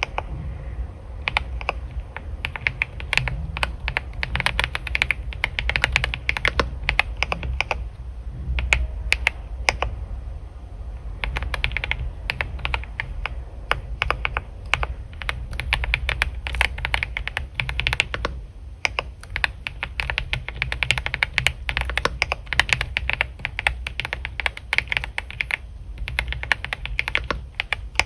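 Computer keyboard typing in runs of quick keystrokes, with short pauses between runs, over a steady low rumble.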